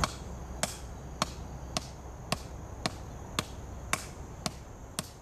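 A hammer striking a wooden block that sits on a metal soil-sampling ring, about nine even blows at roughly two a second, driving the ring into the soil.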